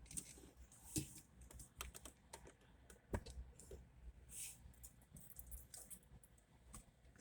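Near silence with faint, irregular clicks and taps scattered throughout.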